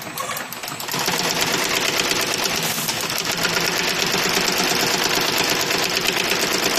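High-speed brush tufting machine punching bristle tufts into plastic brush bodies: a rapid, even mechanical clatter that picks up about a second in after a short lull.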